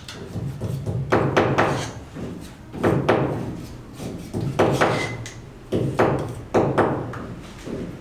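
Irregular knocks and thumps, often two or three in quick succession, some ringing briefly, over a steady low hum.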